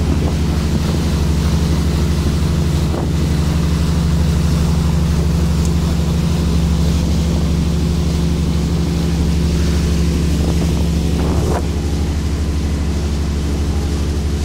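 Small motorboat's engine running at a steady speed: an even low drone with wind noise on the microphone over it.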